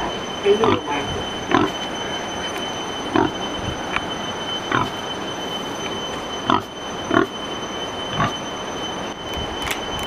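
Pig in a concrete pen giving short grunting calls, about nine of them at irregular intervals.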